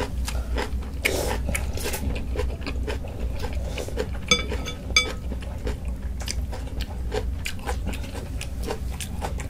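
Close-miked eating of janchi guksu noodle soup: chewing and slurping. Two short ringing clinks come about four and five seconds in.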